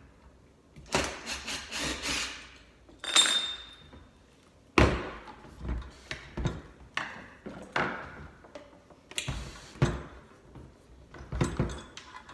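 Hand-tool work on a garbage disposal's wiring: a series of knocks, rattles and scrapes from a screwdriver and small metal parts, with a brief metallic ring about three seconds in.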